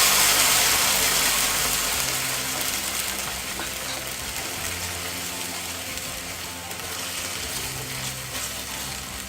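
Ground masala paste dropped into hot oil in a pan, sizzling loudly at first and slowly dying down as it settles.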